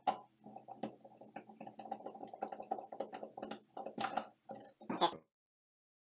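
Screwdriver turning a terminal screw to tighten a wire loop on an electrical outlet: a run of small irregular clicks and scrapes of metal, with a few sharper clicks. The sound cuts off suddenly about five seconds in.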